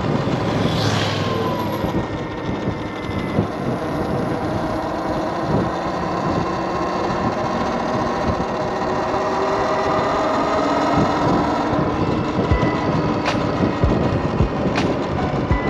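Talaria Sting TL4000 electric motorbike riding along a road: its motor whines in several tones that drift up and down with speed, under steady wind and tyre noise. A falling whine comes about a second in, and a few sharp clicks come in the last few seconds.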